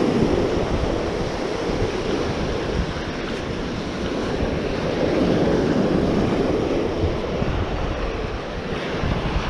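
Surf washing onto a sandy beach, the waves swelling louder twice, with wind buffeting the microphone.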